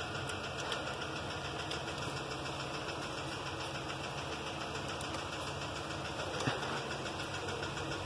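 An engine running steadily: a low, even hum with a fine, fast rhythm.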